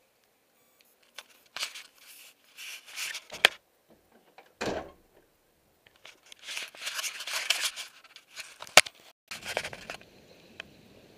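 Rustling, scraping and knocking of handling noise as someone moves through cluttered storage with a handheld camera, in irregular bursts, with two sharp clicks and a dull thump.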